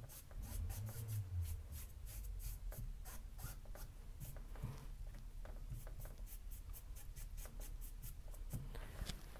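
Paintbrush stroking paint onto a stretched canvas in a fast run of short, light strokes, about four or five a second.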